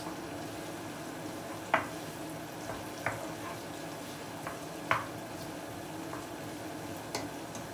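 Chopped onions sizzling in oil in a frying pan while being stirred, the stirring utensil knocking against the pan a few times.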